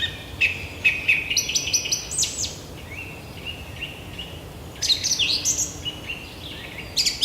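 Forest birds singing and calling: runs of short chirps and quick trills, with quieter stretches about three and six seconds in.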